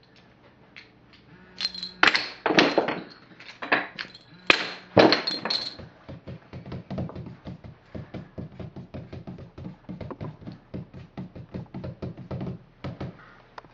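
A few loud thuds and knocks, then a quick, even run of lighter taps, about four a second.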